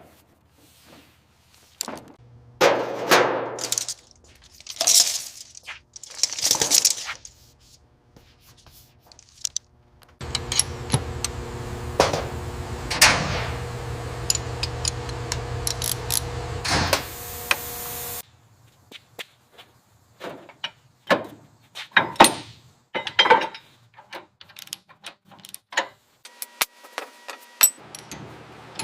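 Workshop sounds from car-body work: scattered knocks, clicks and short scraping swishes. About ten seconds in, a power tool or machine starts with a steady hum, runs for about eight seconds and cuts off suddenly, and then the knocking and clicking resume.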